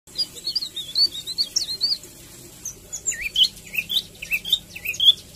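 Caged songbird twittering in quick, high chirps: a fast warbled run for about two seconds, then, after a short pause, a string of separate sharp chirps.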